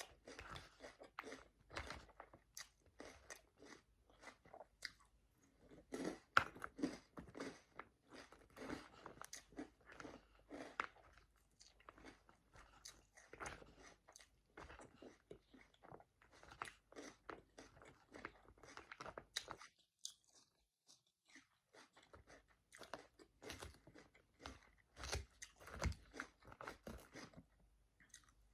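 Close-up chewing and crunching of a Caesar salad, many irregular crisp crunches with a short pause about two-thirds of the way through.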